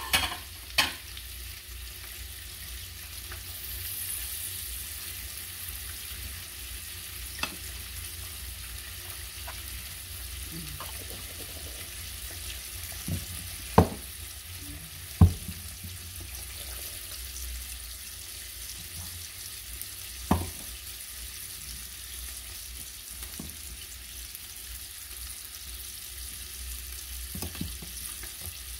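Chicken pieces searing in butter in a frying pan make a steady sizzle. A handful of sharp knocks and clatters are scattered through it, the two loudest about halfway in.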